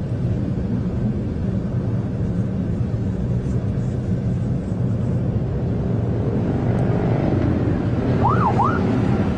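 Car engine running steadily, with a short police siren whoop, rising, falling and rising again, about eight seconds in: the signal to pull over.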